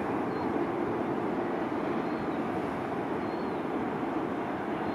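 Jet engines of taxiing airliners, a steady low drone without change.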